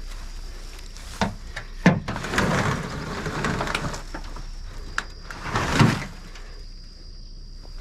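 Fallen sheet metal being flipped: two sharp knocks, then a long scrape as the sheet is dragged and lifted, and a second loud scraping clatter about six seconds in.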